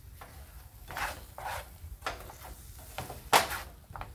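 A spatula scraping and stirring scrambled egg whites with spinach and cheese in a nonstick skillet, in irregular strokes against the pan. The loudest stroke comes a little over three seconds in.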